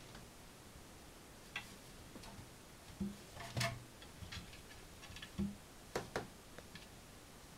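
Irregular light clicks and taps of a kitten's claws and paws against a plastic toilet seat and bowl, with a few louder knocks about three and six seconds in.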